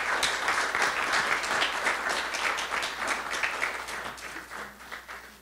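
Audience applauding, the clapping swelling at once and fading away towards the end.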